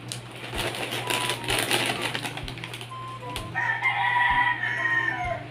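Crunchy cheese-flavoured puffed snacks being chewed and the snack bag crinkling, as a run of quick crackles. About three and a half seconds in, a rooster crows once, loud and drawn out, falling away at the end.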